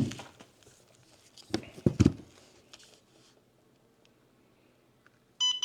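A few sharp clicks and knocks of a LiPo pack being handled, then near the end a short electronic beep from a LiPo cell voltage checker as it is plugged into the pack's balance lead.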